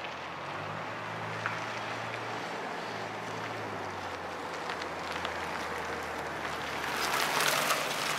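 Ford F-350 Super Duty pickup with a snow plow driving up and past close by: a steady engine hum and tyre noise that grow louder, loudest near the end as it goes by.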